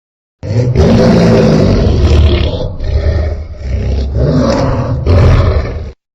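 Giganotosaurus roar sound effect: a loud, low, rumbling dinosaur roar that starts about half a second in, sags in the middle, swells again and cuts off abruptly near the end.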